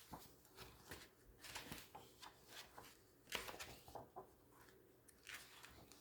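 Faint rustling and flicking of magazine pages being turned quickly, a string of short soft swishes, the loudest about three seconds in.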